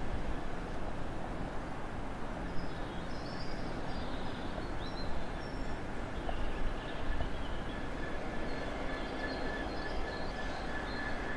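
Freight train behind a Class 66 diesel locomotive approaching: a steady rumble, with a thin, steady high whine from the rails joining about halfway through and growing louder. Birds chirp briefly in the first half.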